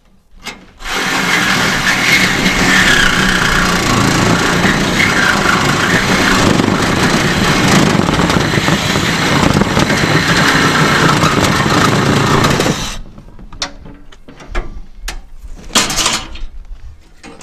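A handheld power tool runs without a break for about twelve seconds and then stops abruptly, as the packing bands around a sawmill crate are cut. This is followed by scattered clicks and clatter as the loose straps are pulled away.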